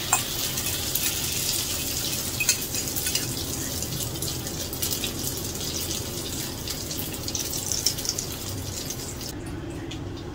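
Instant-noodle and egg omelette mixture sizzling in hot oil in a wok, a steady hiss with many small pops, as it is poured in and pressed flat. The sizzle becomes much fainter about nine seconds in.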